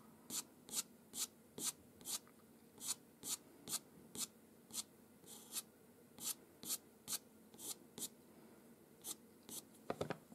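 Pastel pencil tip scratching over paper in quick, short fur strokes, about two a second, each a brief hiss. There are a few light knocks near the end.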